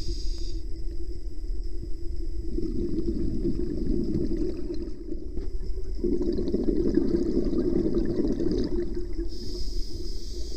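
Scuba diver breathing through a regulator underwater: a high hiss of inhaling through the demand valve at the start and again near the end, with exhaled bubbles gurgling out twice in between. A steady low hum runs underneath.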